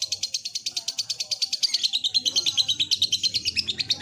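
Lovebird singing its ngekek, a long unbroken chatter of rapid high chirps, well over ten a second.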